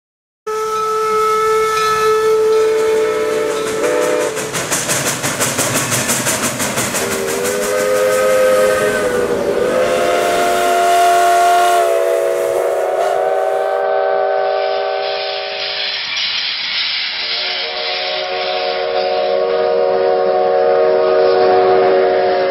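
Steam locomotive whistles blowing a series of long chords of several notes, the pitch shifting between blasts, over the hiss of escaping steam. A quick rhythmic chuffing runs under the first blasts.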